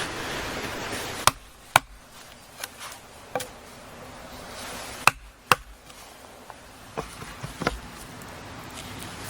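A series of sharp knocks or chopping strikes, about seven at irregular intervals. A steady rushing noise drops away about a second in.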